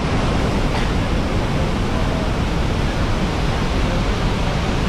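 A large waterfall's falling water: a steady, even rush with no breaks.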